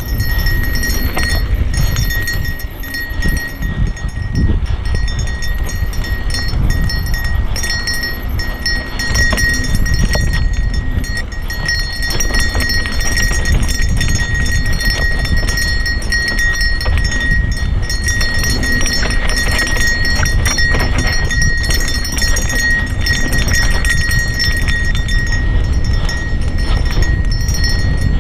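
Santa Cruz Nomad full-suspension mountain bike descending a dry dirt trail at speed: tyres crunching over dirt and small rocks, with continuous rattling and clattering from the bike as it bounces along. Heavy wind rumble on the camera microphone runs underneath.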